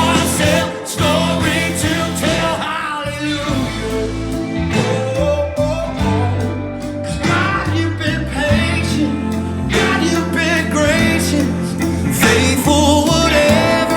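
A song with male singing, guitar and sustained bass notes, played back through B&W 606 S3 bookshelf speakers with the subwoofer switched off.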